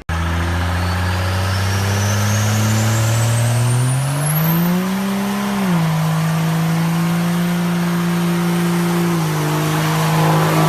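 Turbo-diesel pickup truck engine revving up steadily, its turbocharger whistle climbing steeply in pitch alongside. About halfway through the revs drop back sharply, then hold steady, easing down a little near the end.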